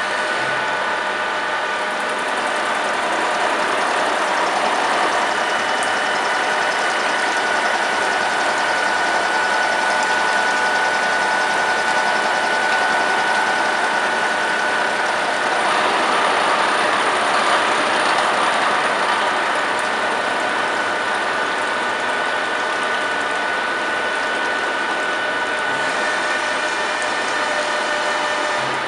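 Deckel FP 4 NC milling machine running, a steady whine of several tones over mechanical noise, with a broader rush of noise swelling for a few seconds past the middle.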